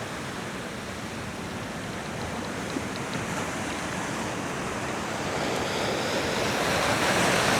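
Sea surf washing against the rocks in heavy swell, a steady rush that slowly builds louder toward the end.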